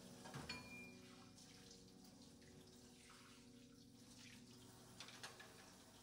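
Faint sink-side sounds of washed bowls being set down upside down on a roll-up stainless-steel drying rack: a few soft clinks about half a second in and again near the end, with a little dripping water, over a low steady hum.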